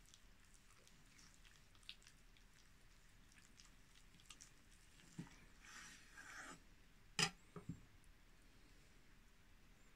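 Kitchen knife slicing through a boiled pork hock roll on a bamboo cutting board: faint soft cutting sounds and small clicks, then a sharp knock of the knife on the wooden board a little after seven seconds in, followed by two lighter knocks.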